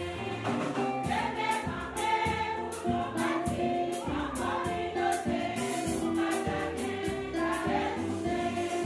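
Background music: voices singing together over a steady beat.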